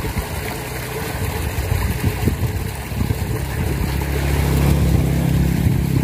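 A motorbike engine running on the road beside the ditch, growing louder as it approaches and loudest about five seconds in. Water rushes steadily in the concrete irrigation ditch underneath.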